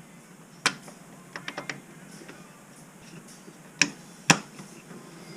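Sharp metallic clicks and taps from tools and parts as the starter gear cover is fitted back onto the ATV engine. One click comes about a second in, then a quick run of four small ticks, then two louder clicks about half a second apart near the end.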